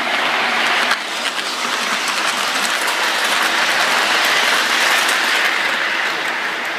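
Lionel model freight cars rolling past close by on the track, a steady rolling rumble with fine clatter from the wheels.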